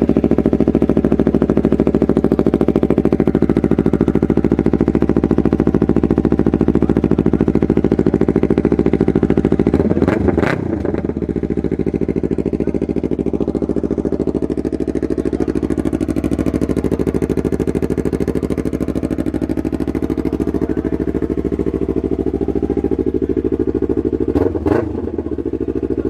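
Yamaha R3's parallel-twin engine running steadily through an M4 slip-on exhaust, with two brief throttle blips, one about ten seconds in and one near the end.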